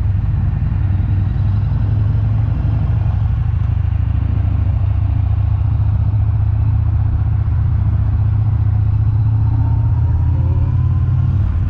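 Steady low rumble of a vehicle under way, engine and road noise, with a faint rising tone near the end.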